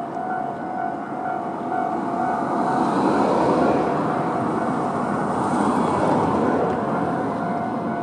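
Japanese level-crossing warning bell ringing steadily in its standard alarm tone while an electric train passes over the crossing. The train's running noise swells from about two seconds in and fades by about seven seconds.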